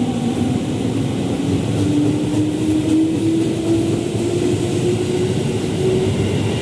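JR 205 series electric commuter train pulling out, its traction motors giving one slow, rising whine over the steady rumble of the wheels on the rails.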